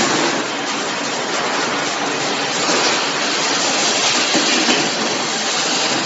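Industrial machinery running: a loud, steady mix of mechanical clatter and hiss.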